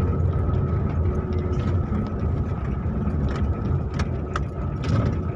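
Car engine and tyre rumble heard from inside the cabin while driving slowly over a concrete lane, with a faint steady whine and a few sharp clicks near the end.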